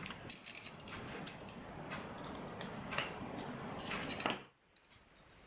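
Metal parts of a Leatherman Charge TTi multitool clicking and clinking as they are handled and fitted together during reassembly: scattered sharp clicks, a busier run of clinks about four seconds in, then a brief hush near the end.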